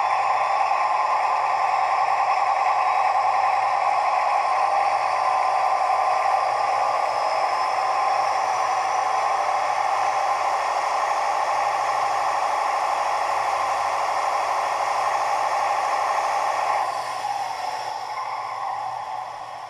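Diesel engine sound of a DB class V160, played by a Doehler & Haass sound decoder through the small loudspeaker of a Brawa V320 model locomotive. It runs steadily and grows quieter about seventeen seconds in.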